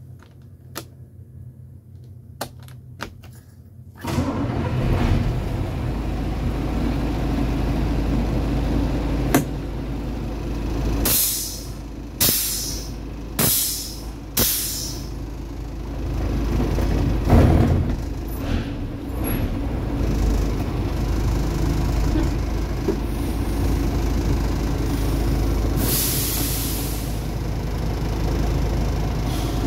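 Mercedes-Benz 2632 truck's V8 diesel starting about four seconds in after a few clicks of the key, then running steadily with a deep rumble; the owner calls the engine still in excellent condition. Several sharp hisses of compressed air break through, a cluster near the middle and one more near the end.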